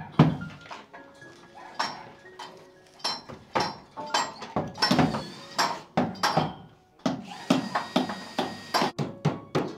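Irregular metal-on-metal clanks and knocks of a hammer striking steel scaffold props and pipes, some strikes ringing briefly.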